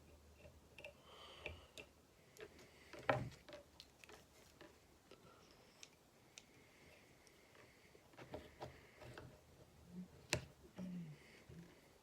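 Scattered small clicks and taps from handling fly-tying tools and materials at the vise, with one sharper click about three seconds in and another near the end.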